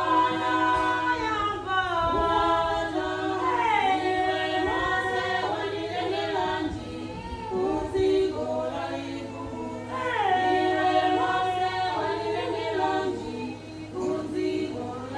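Several voices singing together in harmony without instruments, in a gospel style, over a steady low hum.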